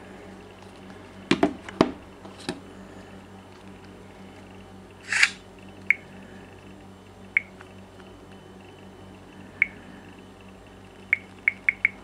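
Phones being handled: a few knocks and a brief rub early on, then single light clicks of fingers tapping a Samsung Galaxy S touchscreen, ending with four quick taps in a row.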